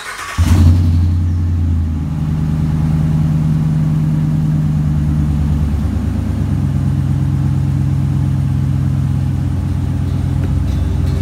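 Ram 1500's Hemi V8 starting and idling through stock piping, a Magnaflow muffler and 5-inch stainless exhaust tips. A brief crank, then it catches and flares about half a second in and settles to a steady idle. The idle speed steps down slightly about six seconds in.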